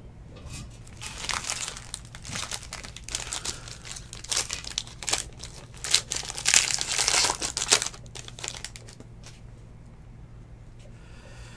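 The foil wrapper of a 2019 Tier One baseball card pack being torn and crinkled open by hand, in irregular crackling bursts that die down after about eight seconds.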